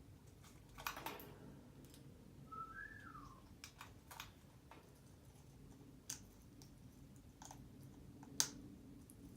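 African grey parrot giving one short whistle that rises and then falls, about two and a half seconds in, amid scattered sharp clicks; the loudest click comes near the end. A faint steady hum lies underneath.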